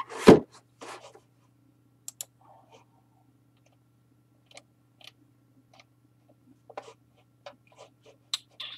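Scattered faint clicks and taps of a computer mouse and keyboard, over a steady low hum.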